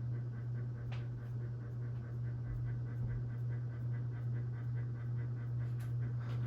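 Minka Aire Contractor Plus ceiling fan running, its motor giving a steady low hum, with a faint click about a second in.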